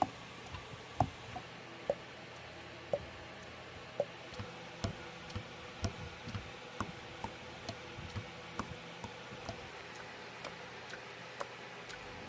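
Light, sharp clicks and taps at uneven spacing, two or three a second, over a faint hiss.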